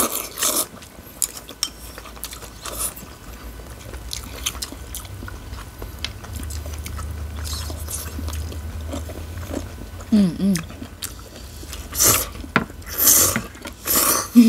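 Rice vermicelli noodles being slurped and chewed, with short wet sucking slurps now and then. A run of loud, longer slurps comes about twelve seconds in. A low hum sits underneath through the middle.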